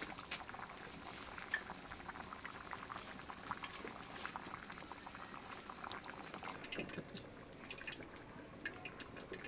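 Potato curry simmering in a wok, bubbling softly with many small irregular pops.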